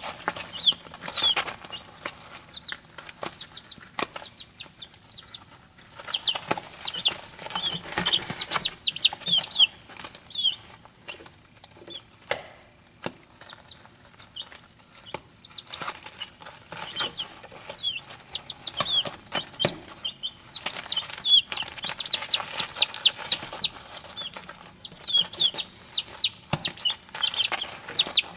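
Barred Rock chicks peeping: a stream of short, high, falling chirps that come in busy bursts with quieter stretches between, over rustling and light pecking in wood shavings.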